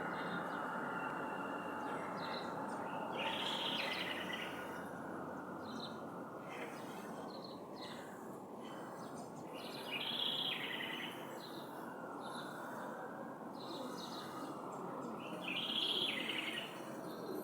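Blue-black grassquit (tizil) singing: a short buzzy note three times, about six seconds apart, over steady background noise.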